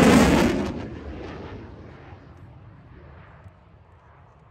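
F-16 Fighting Falcon jet engine noise from a passing fighter, loud at first and fading away over about two seconds as the jet flies off into the distance, leaving only a faint rumble.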